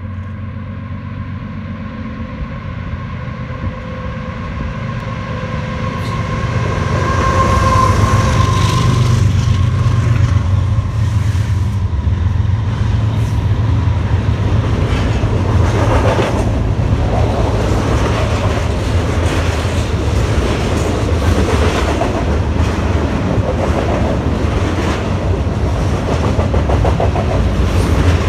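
Double-stack intermodal freight train: its diesel locomotives grow louder as they approach and pass about eight seconds in. Then the container cars roll by with a steady deep rumble and rhythmic wheel clatter on the rails.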